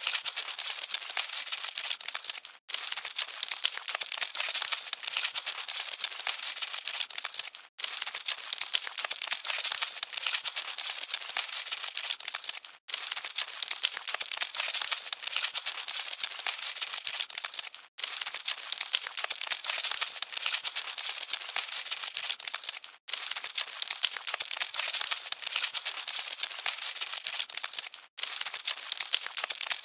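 Dense, scratchy crackling of cockroaches scuttling. It is a short loop that repeats about every five seconds, with a brief dropout between repeats.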